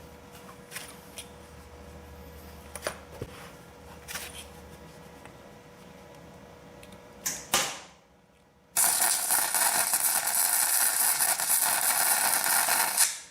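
Light clicks and knocks of tool handling, then an electric welding arc crackling steadily for about four and a half seconds and cutting off sharply, as a nut is welded onto a locking lug nut so it can be backed off.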